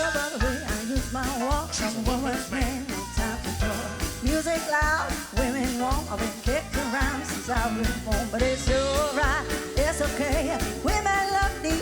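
Live band playing upbeat music: a steady drum beat with bass under a lead melody line that wavers in pitch.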